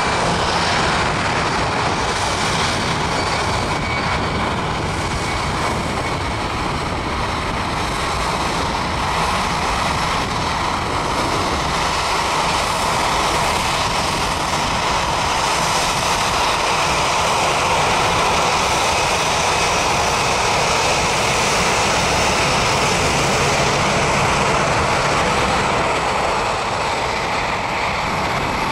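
Airbus A319-100 airliner's twin jet engines at takeoff power during the takeoff roll, a loud, steady jet noise that holds as the aircraft accelerates away down the runway.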